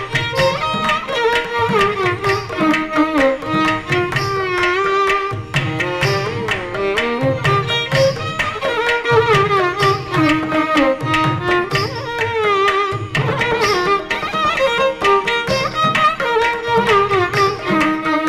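Carnatic violin playing a thillana in raga Mohana Kalyani: a lively melody with sliding, wavering ornaments over steady hand-drum strokes.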